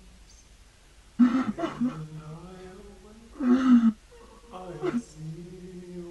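A pitched-down man's voice sobbing and wailing without words, in three loud outbursts about a second, three and a half seconds and four and a half seconds in.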